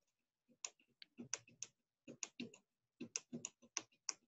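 Faint typing on a computer keyboard: a string of quick, uneven key clicks in small clusters.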